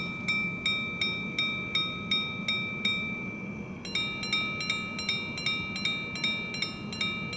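Vintage Arnex five-minute repeater pocket watch striking the time on its gongs: quick, evenly spaced single high strikes for the hour, about three a second. About four seconds in, these give way to paired two-tone strikes, the ding-dongs that count the five-minute intervals.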